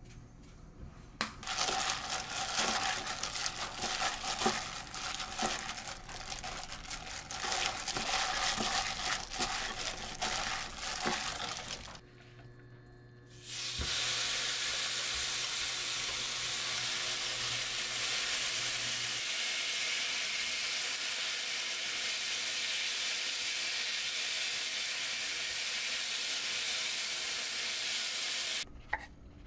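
Bulgogi beef being mixed with a fork in a stainless steel bowl, with irregular clicking for about ten seconds. After a short pause the marinated beef hits a hot frying pan and sizzles steadily until near the end.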